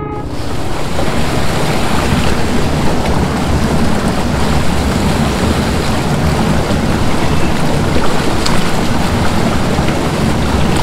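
Loud, steady rush of running water close to the microphone.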